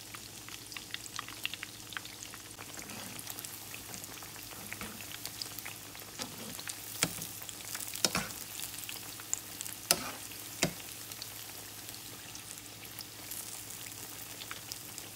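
Battered saba banana pieces frying in hot cooking oil in a pan: a steady sizzle full of fine crackles, with a few louder sharp snaps near the middle.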